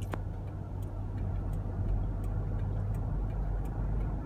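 Car interior while driving on a highway: a steady low rumble from the engine and the road, with faint, light ticks scattered a few times a second.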